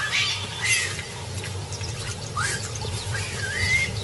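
Baboons giving a few short high calls, each bending up or down in pitch, the last one rising and then held, over a low steady hum.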